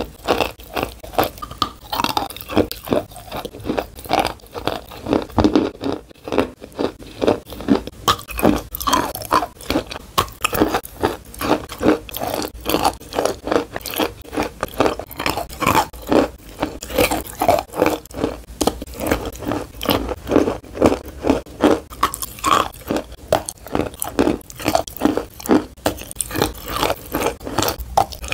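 Close-miked biting and chewing of chalk: dry crunches, many a second, with the softer grinding of chewing between them.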